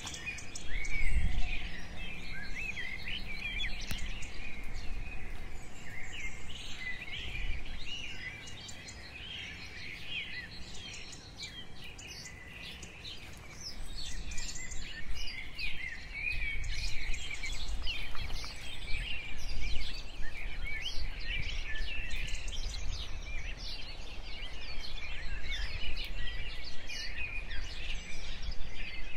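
Many small birds chirping and twittering, a dense chorus of short calls, over a low rumble that swells about a second in and again about halfway through.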